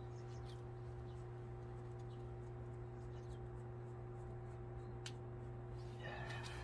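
A steady low hum with a few faint clicks, and a short noisy sound about six seconds in.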